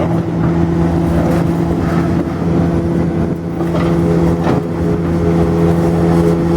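An engine running steadily at an even speed, with a few faint knocks over it.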